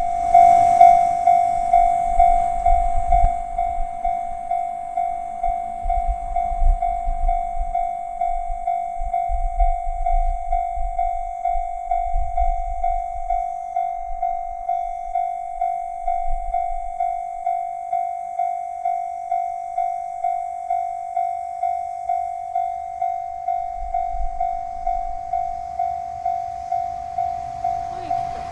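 Railway level crossing warning bell ringing steadily in a regular, even rhythm of about one and a half strikes a second, with a low rumble coming and going through the first half.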